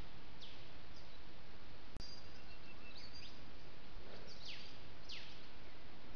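Steady hiss from a trail camera's microphone, with about five short, high chirps that each sweep quickly downward. There is a brief dropout and click about two seconds in, where two recordings are joined.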